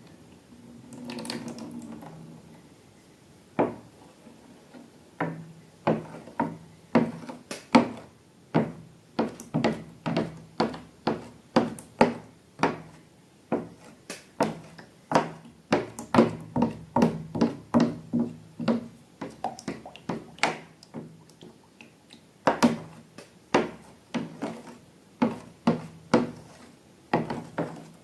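Slime being worked, making a run of short sticky clicks and squelches, about one to two a second, after a softer rustle near the start.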